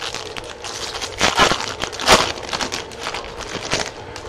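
Foil wrapper of a Topps Chrome trading-card pack being torn open and crinkled in the hands: a run of sharp crackles, loudest about one and a half and two seconds in.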